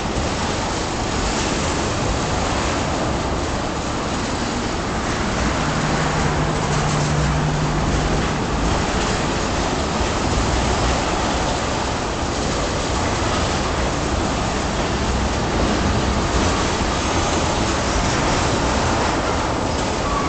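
Freight train tank cars rolling past: a steady rumble of steel wheels on rail, with a brief low hum about six seconds in.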